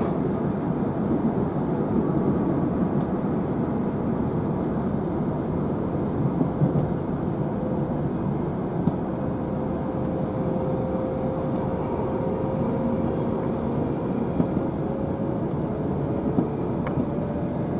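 Inside a Queensland Rail NGR electric multiple unit in motion: steady running noise, a rumble and rush. A faint whine rises slowly in pitch through the middle.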